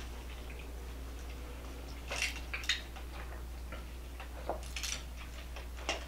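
A cat's paws and claws tapping on a wooden tabletop as it walks: a few light, irregular clicks over a low steady hum.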